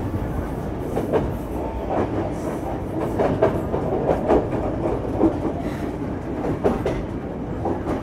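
Passenger train running on the rails, heard through an open coach doorway: a steady rumble with the wheels knocking over rail joints about once a second.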